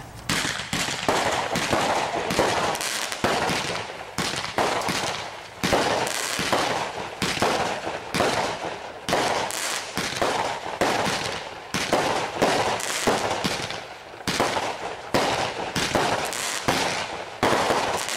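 Aerial fireworks going off: a rapid, irregular barrage of bangs and crackling, coming in salvos with brief lulls between them.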